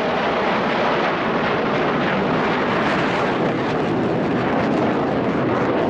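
Chengdu J-10 fighter jets' turbofan engines: a loud, steady jet roar as the formation breaks apart overhead.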